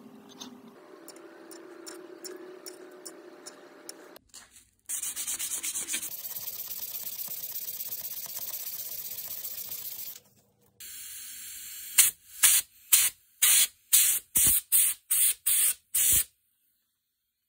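Ash wood being sanded on a lathe: a loud steady hiss for several seconds, then about ten short, loud rasping strokes in quick succession.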